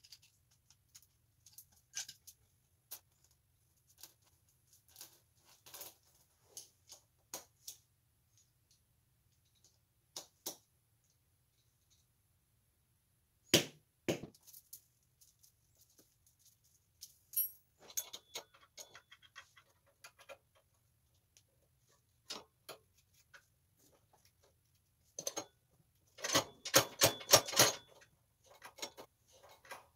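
Scattered metal clinks of tools and roller chain being handled, with two loud sharp hammer strikes about halfway through as the chain is worked on with hammer and punch, and a quick run of metallic clattering near the end.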